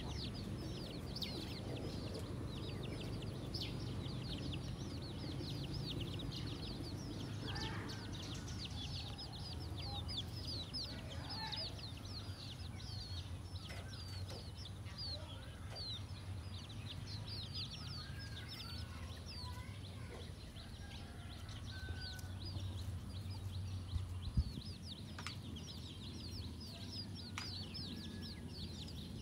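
A brood of chicks peeping without pause: quick, thin, high peeps that slide downward, with a mother hen's occasional lower clucks among them. A low rumble runs underneath, and there is a single brief knock about 24 seconds in.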